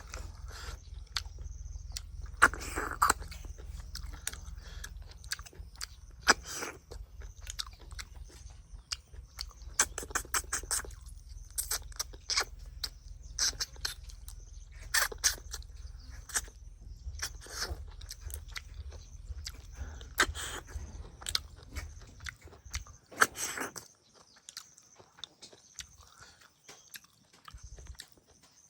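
A person eating close to the microphone: chewing and crunching with many short, sharp clicks. A steady low hum underneath stops about three-quarters of the way through.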